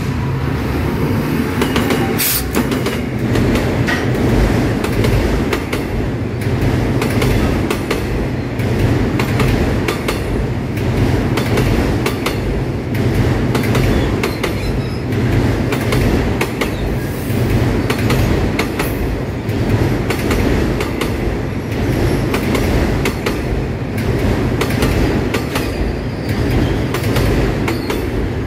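SRT CRRC Qishuyan 'Ultraman' diesel-electric locomotive and its passenger coaches passing over a road level crossing. A loud, steady rumble carries rapid, regular wheel clacks over the crossing rails.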